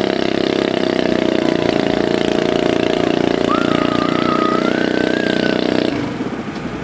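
Small garden pulling tractor's engine running steadily at raised speed, then dropping back to a lower, rougher-pulsing idle about six seconds in. A faint wavering higher tone sounds over it for a couple of seconds midway.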